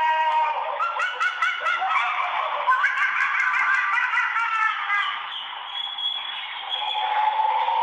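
Ringtone playing through a Sony Ericsson K510i's small speaker: a quick run of short, arching chirps over light, regular ticks, giggle-like in character. A new steady tone starts near the end.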